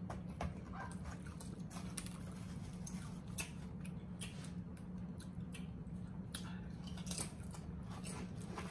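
Doritos tortilla chips crunching as they are chewed and picked out of a bowl: scattered sharp crackles over a steady low hum.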